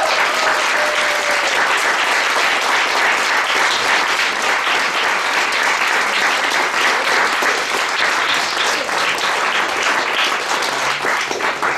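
Audience applauding steadily at the end of a talk, easing off a little near the end.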